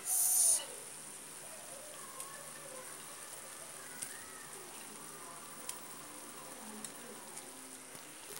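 A pot of soup simmering on the stove: a soft, steady bubbling with an occasional small pop. A brief loud hiss comes in the first half second.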